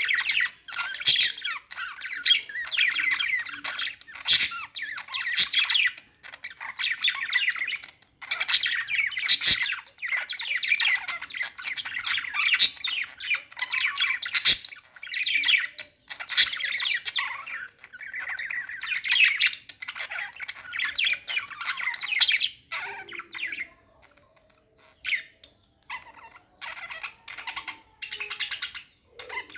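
Budgerigars (budgies) singing, a busy chatter of quick, high chirps and squawks in near-continuous runs, with short pauses and a quieter stretch about three quarters of the way through.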